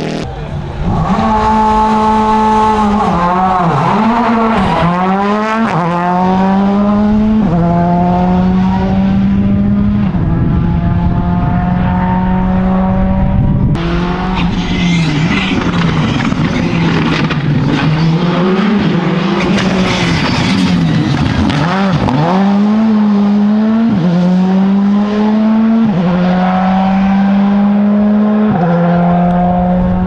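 Rally cars driven flat out on a tarmac special stage. The engine note climbs and drops back again and again as the driver shifts up through the gears, with short lifts off the throttle in between. The sound changes abruptly about halfway through, from one car to the next.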